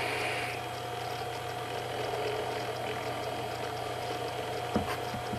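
Hiss of a long draw on a vape, ending about half a second in. Then comes faint regular ticking over a steady hum, with one sharp click near the end.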